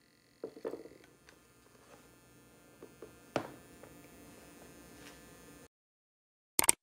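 Faint electrical hum and buzz from a homemade inverter and its rewound microwave-oven transformer, with a high whine that stops about a second in. A few knocks come as a corded drill is handled and set down on a plywood bench, the loudest about three and a half seconds in. The hum cuts off suddenly, and near the end there is a short, sharp click.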